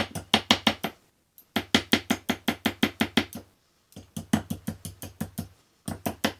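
Quick, light hammer taps driving a metal point into a wooden board, about eight strikes a second in runs of a dozen or so, with short pauses between the runs. This is the punching of faux wormholes to distress the wood.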